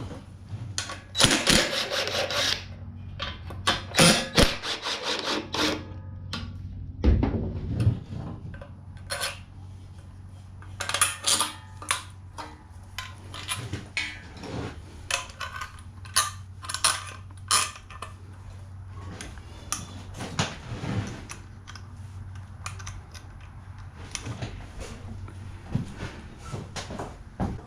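Hand tools and loose metal parts clinking and clanking at irregular intervals as a mini bike is unbolted and stripped. The clatter sits over a steady low hum.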